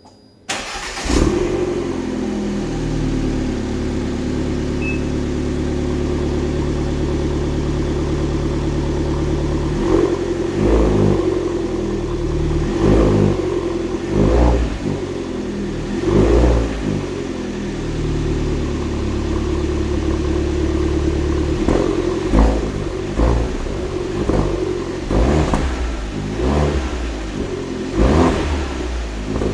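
Alfa Romeo MiTo Quadrifoglio Verde's 1.4 turbocharged four-cylinder engine on its stock exhaust, starting about half a second in and settling from a higher idle to a steady idle. From about ten seconds on it is revved in a series of short blips, each climbing and falling back to idle.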